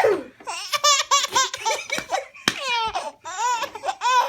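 Four-month-old baby girl belly-laughing hard, in quick runs of high-pitched laugh pulses, broken by a longer falling squeal about halfway.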